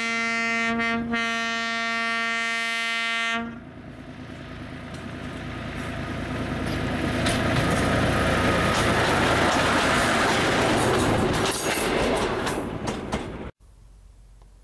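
Brill railcar No. 106 sounds its single-tone horn in one long blast, briefly broken about a second in. The railcar then runs up and past, its engine and wheels growing louder, with the wheels clicking over the rail joints; the sound cuts off suddenly near the end.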